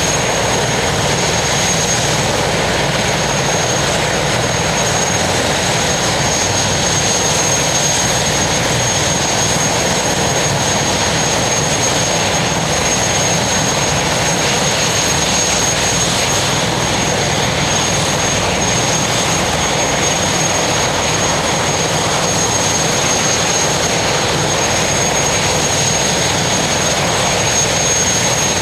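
Turbine helicopter running steadily at close range, a loud even rush of rotor and engine noise with a high, steady turbine whine on top.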